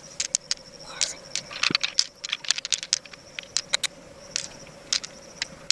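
Small hard objects clicking and scraping against each other in quick, irregular taps, over a faint steady hum.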